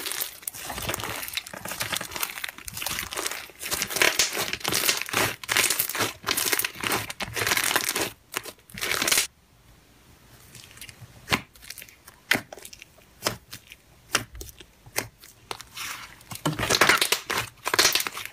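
Slime being squeezed and stretched by hand, making a dense run of small crackles and pops. About nine seconds in it drops to quieter, scattered pops, then builds back to dense crackling near the end.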